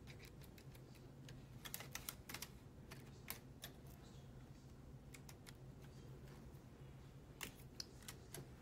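Faint, scattered clicks of the LK150 knitting machine's needles and a two-prong transfer tool as stitches are moved outward to increase one stitch at each edge. The clicks bunch together about two seconds in and come singly after that, over a low steady hum.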